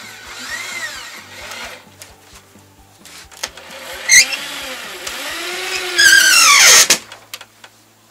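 Electric drill-driver working screws in wooden formwork boards, its motor whining up and down in short trigger pulls. The longest and loudest run comes about six seconds in.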